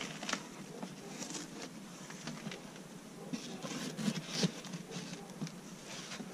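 Scattered light knocks and rustling as the lid of a foam beehive is handled and set back in place over the inner cover and film.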